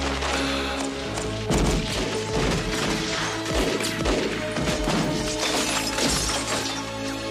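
Film soundtrack: a score with steady held notes over a run of sharp crashes and thuds, the sound effects of a gunfight.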